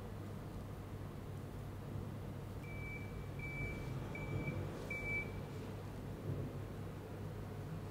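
Four short, evenly spaced high electronic beeps over a steady low hum.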